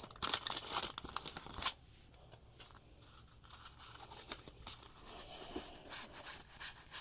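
Wax-paper wrapper of a 1990 Fleer basketball card pack crinkling and tearing as it is opened, for a little under two seconds, then quieter rustling as the cards are handled.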